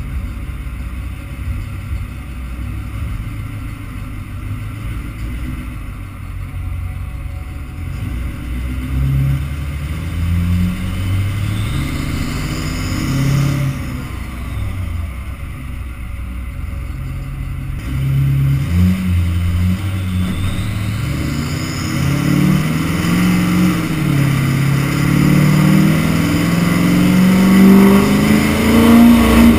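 Duramax LBZ 6.6-litre V8 turbodiesel with an aftermarket Danville Performance VGT turbo, heard from the pickup's bed, running at low speed with its pitch stepping up and down. In the last few seconds it accelerates harder, rising steadily in pitch and loudness.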